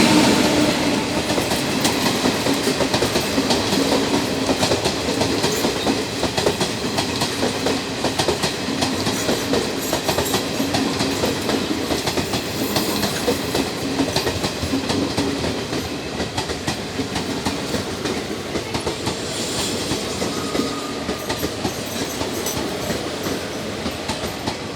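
Passenger train coaches of the 12055 Jan Shatabdi Express rolling through the station, with a steady stream of wheel clicks over the rail joints. The sound gradually gets quieter.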